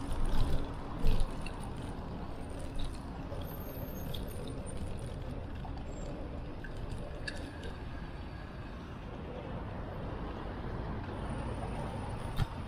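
Steady rumble of wind and road noise while riding a bicycle, with a couple of sharp knocks in the first second or so.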